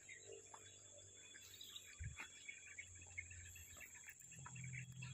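Near silence: faint rural ambience of scattered insect and bird chirps over a steady high-pitched insect drone, with one soft thump about two seconds in.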